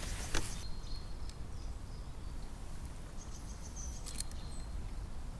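Outdoor ambience: a steady low rumble with a few faint, high bird chirps a few seconds in and a couple of small, sharp clicks.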